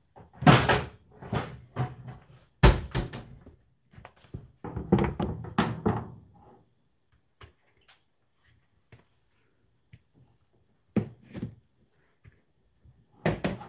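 Kitchen handling clatter: a plastic cutting board and a mixing bowl knocking and being set down on a counter, with a burst of knocks over the first six seconds, the sharpest about three seconds in. Two more short knocks come near the end.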